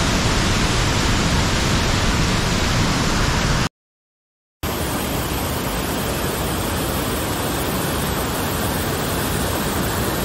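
Water of the Rhine Falls rushing and pouring over rock ledges: a steady, loud noise of falling water. A little under four seconds in it cuts out to silence for about a second, then comes back slightly quieter.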